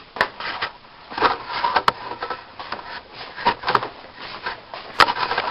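Handling noise in a small room: scattered sharp clicks and knocks with rubbing and scraping between them.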